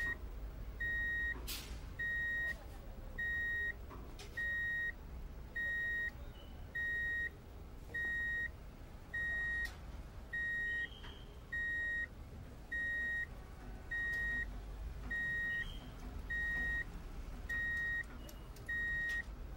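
An electronic beeper sounding a steady single-pitched beep, about half a second long, repeating just over once a second, with a few faint clicks from the toy trailer's hand winch being cranked.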